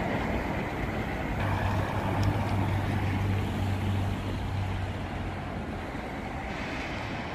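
Outdoor traffic noise, with a vehicle engine's low steady hum that lasts a few seconds and then fades, over a general wash of street noise.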